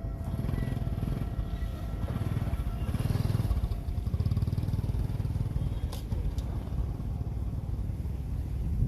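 A motor or engine running with a low, rapidly pulsing rumble that swells about three seconds in and again near the end.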